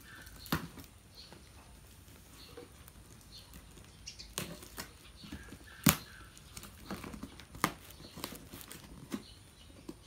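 Packing tape being picked at and pulled off a cardboard box: scattered sharp snaps and rustling, the loudest snap about six seconds in.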